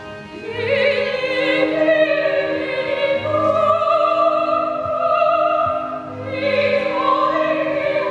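An opera singer singing an aria over a sustained instrumental accompaniment, the voice entering about half a second in and holding long notes with a wide vibrato.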